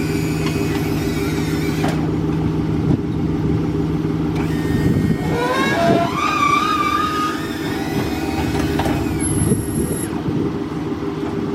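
Wheelchair lift on a van running under power: a steady mechanical hum, with a rising, wavering whine about halfway through.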